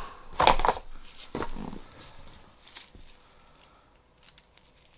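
Hard objects being handled and set down on a work surface: a burst of loud knocks and rattles about half a second in, another cluster of clicks a second later, then only faint light clicks.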